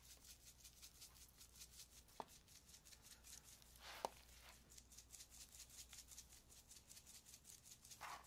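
Near silence with faint handling noise as a large seasoned beef strip loin is lifted and turned on a plastic cutting board. Two soft knocks against the board come about two seconds apart, the second a little louder.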